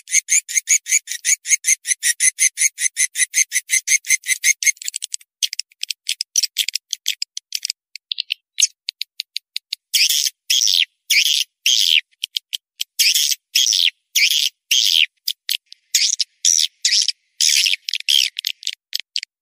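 Swiftlet calling recording (suara panggil walet) used to lure edible-nest swiftlets into a swiftlet house: a fast, even train of high twittering chirps, turning to sparse clicks about five seconds in, then to longer chirping bursts with short gaps from about ten seconds in.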